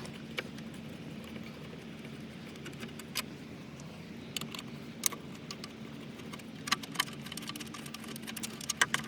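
Scattered light clicks and rattles of screws being worked out of a rear door speaker grille, with a cluster of clicks near the end, over a steady low hum.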